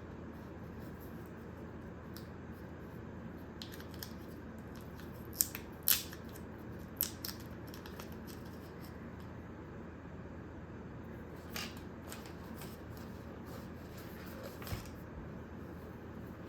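Handling noise from an unboxing: scattered sharp clicks and light rustles of packaging and small accessories being handled, over a steady low hiss. The loudest clicks come in a quick cluster about a third of the way in, with a few softer ones later.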